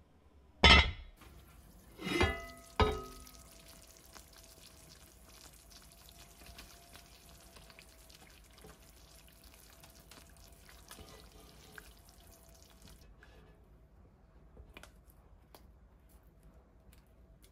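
Enamelled cast-iron Dutch oven lid set down on the pot with a loud clank about a second in, then two more ringing knocks. After that comes a faint hiss of simmering tomato sauce with a spatula stirring through it, and a few soft ticks near the end.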